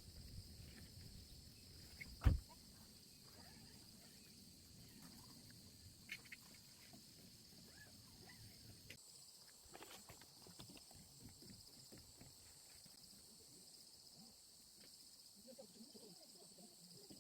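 Faint, quiet ambience with a steady high hiss, broken by a single sharp knock about two seconds in and a few small clicks.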